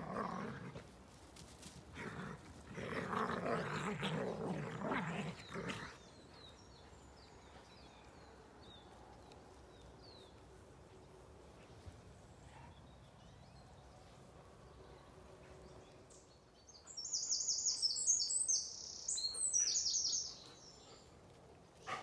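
A songbird in the trees overhead sings two loud, quick, high-pitched phrases near the end, with faint chirps before them. Early on there are a few seconds of dogs growling as they play.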